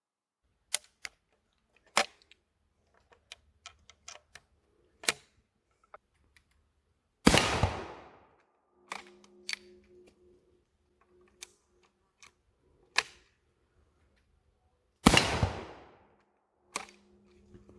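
Austro-Hungarian M1854/66 Wänzl breech-loading rifle fired twice, about eight seconds apart, each shot of its black-powder 14x33R rimfire cartridge trailing off over about a second. Smaller clicks and knocks of the rifle being handled come before, between and after the shots.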